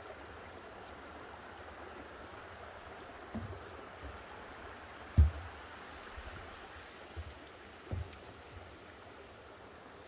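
Creek water running steadily, with a few dull footsteps thudding on a wooden footbridge; the heaviest step falls about five seconds in.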